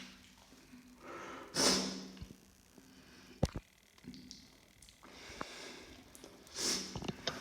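A person sniffing wetly through the nose twice, about five seconds apart, the first sniff the loudest, with a few small wet clicks in between.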